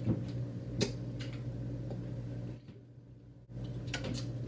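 Steady low hum with a few faint clicks, cutting out briefly about three seconds in.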